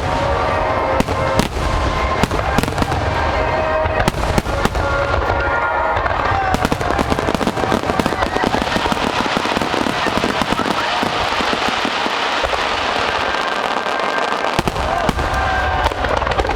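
Aerial fireworks bursting and crackling in a dense, continuous barrage, with music over loudspeakers underneath. The deep booms ease off for a few seconds in the latter half, then return.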